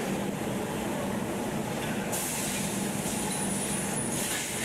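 Glassworks machinery running with a steady hum. A hiss sets in about two seconds in and stops shortly before the end.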